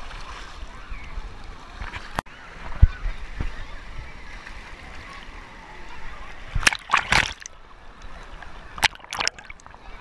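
Choppy pool water sloshing and splashing against an action camera held at the surface, with several sharp splashes about two-thirds of the way through and again near the end. Faint voices of swimmers in the background.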